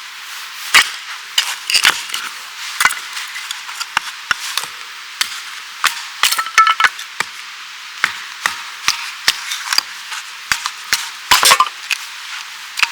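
Wood being worked by hand: a series of sharp, irregular knocks and cracks, about a dozen, with a quick cluster of strikes near the middle and another near the end.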